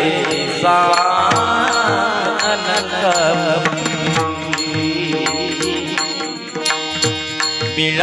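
Marathi devotional kirtan music: a singer's melodic voice, bending in pitch, over steady instrumental tones and regular percussion beats.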